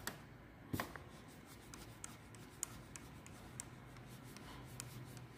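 Faint handling sounds of fingers turning a motorcycle throttle cable adjuster and its lock nut to set the cable's free play: light rubbing with a few small clicks, the sharpest right at the start and again just under a second in.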